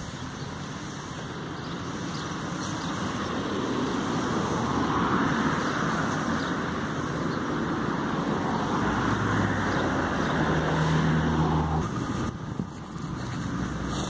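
Road traffic passing on a road bridge: tyre noise swelling as vehicles go by, with an engine's low hum joining near the end before the sound drops away suddenly.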